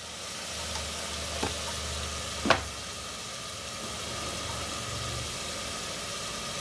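Chopped tomato, turmeric and red chilli powder frying in hot oil in a pressure cooker, sizzling steadily over a low steady hum. A sharp tap comes about two and a half seconds in, with a fainter one a second earlier.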